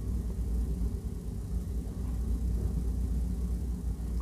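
Steady low background rumble and hum with no distinct events.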